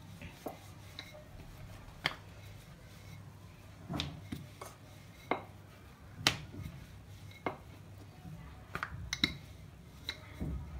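Wooden rolling pin rolling out chapati dough on a polished granite surface, with irregular sharp clicks and knocks as the pin touches down on the stone, about ten in all.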